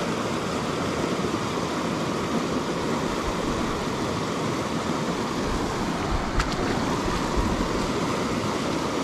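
Steady rush of a small freestone mountain creek running over rocks and through a riffle.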